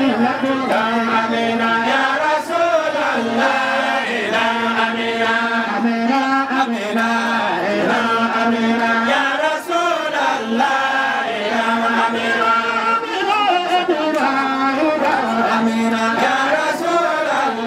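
Voices chanting a melodic Islamic devotional hymn, the tune rising and falling in phrases of a few seconds over a steady held low tone.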